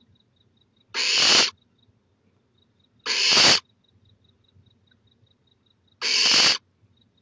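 Barn owl owlet giving its 'snore', the hissing food-begging call of a nestling. Three separate hisses, each about half a second long, come about one, three and six seconds in.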